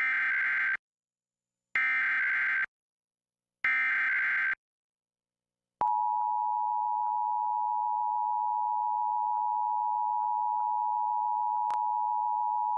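Emergency Alert System SAME header: three short bursts of warbling digital data tones, each under a second and about two seconds apart. Then the steady two-tone EAS attention signal (853 and 960 Hz sounded together) comes in about halfway through and holds.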